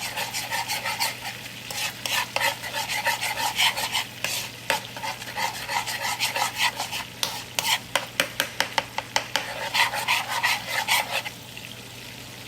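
Minced garlic sizzling in melted butter in a pan while a utensil stirs it, with many quick clicks and scrapes against the pan. The stirring and most of the sizzle stop near the end.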